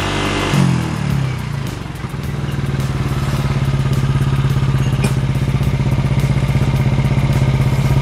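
Yamaha NMAX V2 scooter's single-cylinder engine, newly built with a 66 mm MTRT piston, revving briefly and then settling to a steady idle about two seconds in, while its coolant system is bled of trapped air.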